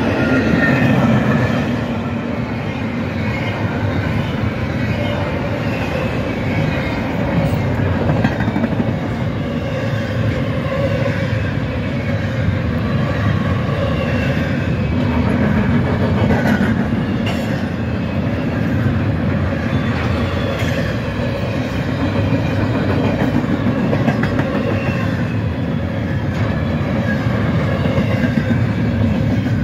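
Double-stack intermodal freight train rolling past at speed: a steady, unbroken rumble of well cars and wheels on the rails.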